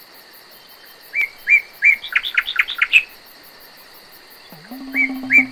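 A songbird singing the same short phrase twice: three spaced whistled notes quickening into a rapid run of notes. A steady high-pitched drone runs beneath.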